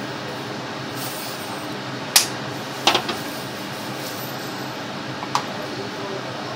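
Kitchen items knocking on a stainless gas stovetop as a sauce bottle is set down and a plastic tub is picked up: one sharp knock about two seconds in, two or three more about three seconds in, and a light click near the end, over a steady background hum.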